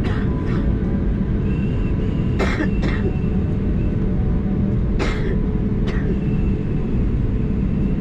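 Steady low rumble of an Airbus A320neo's cabin while the aircraft taxis, with a few short coughs spread through it.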